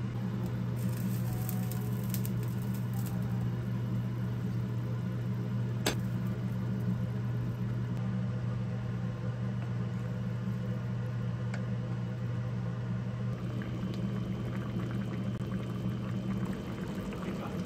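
A steady low hum of a running appliance motor, with faint pattering and an occasional click over it.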